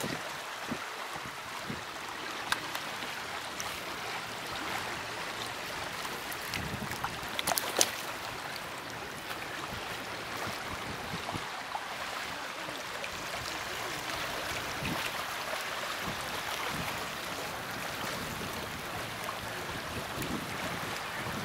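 River water flowing, a steady rushing hiss, with a few sharp clicks and knocks, the loudest about eight seconds in.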